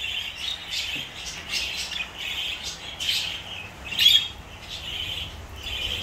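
Budgerigars chattering and warbling steadily, with sharper chirps about three and four seconds in, the loudest near four seconds.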